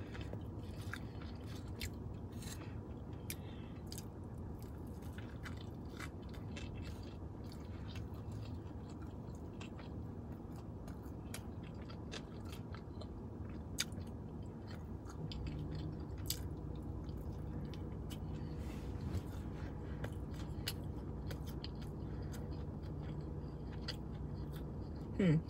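Close-up chewing of a fried breaded flounder sandwich, with small wet mouth clicks scattered throughout, over a steady low hum.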